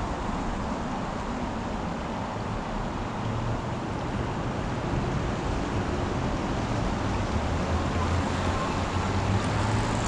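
Steady outdoor background noise: an even wash with a fluctuating low rumble, growing slightly louder over the last few seconds.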